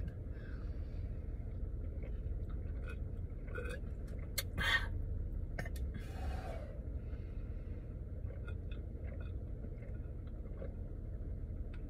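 A woman sipping and swallowing from a tall drink can, with small clicks and handling noises, over a steady low hum inside a car's cabin.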